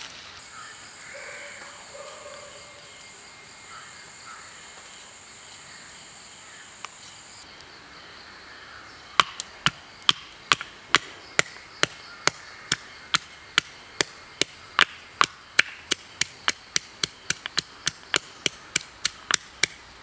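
Rhythmic chopping, a blade striking a cutting surface, starting about nine seconds in at about three strokes a second and speeding up toward the end. A steady high-pitched insect whine runs underneath.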